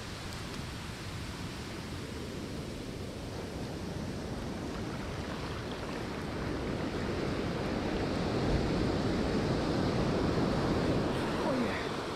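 Ocean surf washing up the beach, a steady rush of breaking waves and foam that swells louder past the middle.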